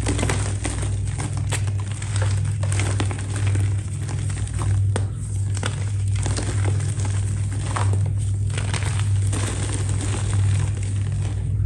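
A crisp, crumbly material being crushed and snapped by hand for ASMR: dense crackling and crunching with scattered sharper snaps, over a steady low hum.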